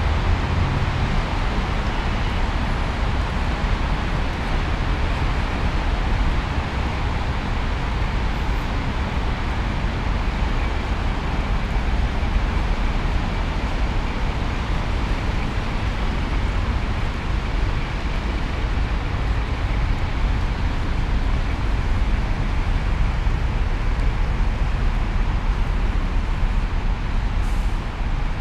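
Steady city road traffic noise: an even rush of passing vehicles with no single distinct event.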